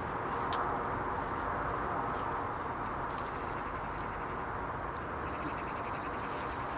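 Steady outdoor background hiss with a few short, high bird chirps, and a quick run of ticking chirps about five seconds in.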